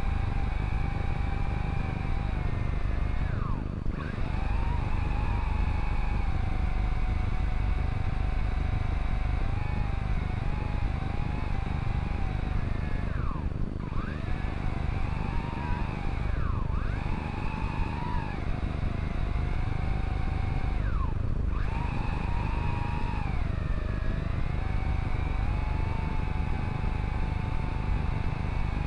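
Quadcopter drone's electric motors and propellers whining, the pitch wavering and dipping sharply several times as the throttle changes, over a steady low rumble.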